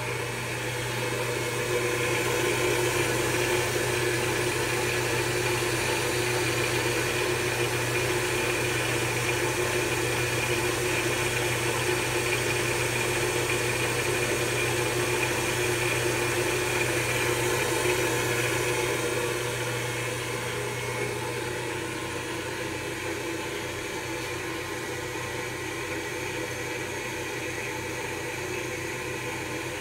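Belt-driven spindle of a CNC-converted Grizzly G0704 mini mill and its VFD-driven motor running steadily at 60 Hz, about 3,060 rpm: a constant hum with a higher whine over it, a little quieter from about twenty seconds in.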